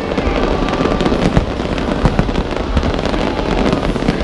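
Fireworks display: a dense, unbroken run of bangs and crackling bursts.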